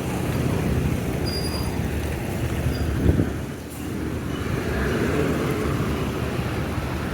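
Road traffic: vehicles with running engines passing on a busy road, a steady mix of engine and tyre noise.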